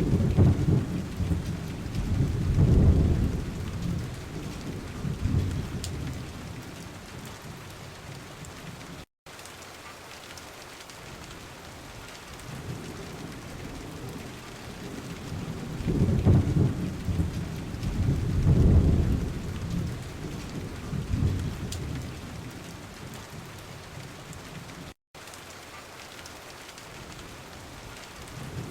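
Recorded rain ambience: steady rain with two long, low rolls of thunder, one at the start and one about halfway through. The track cuts out for an instant twice.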